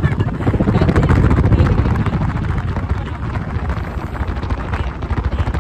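Wind buffeting a phone microphone on a moving two-wheeler, a loud, uneven low rumble with road and engine noise mixed in.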